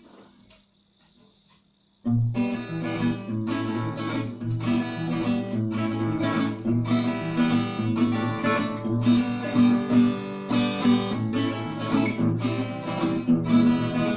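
After near silence, instrumental music with strummed acoustic guitar starts abruptly about two seconds in and keeps a steady strumming rhythm.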